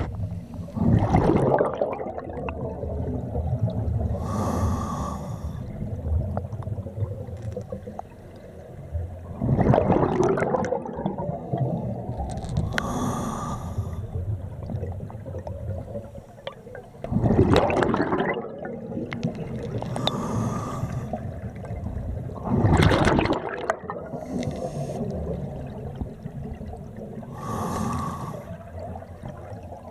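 Scuba diver breathing underwater through a regulator, slowly and evenly: about four breaths, each a short hissing inhalation followed by a louder gurgling burst of exhaust bubbles.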